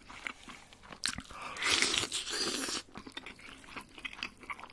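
Close-miked eating: crunchy bites and chewing, with a loud run of crunching from about a second and a half in to nearly three seconds, and smaller crackles around it.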